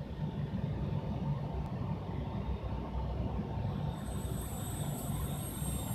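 Hydraulic pump of an RC excavator running steadily with a low hum and a faint whine; a thin high-pitched whine joins about four seconds in.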